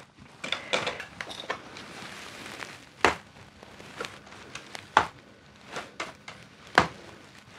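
Handling noises while packing a container: a soft rustle, then three sharp knocks about two seconds apart as things are set down on a table.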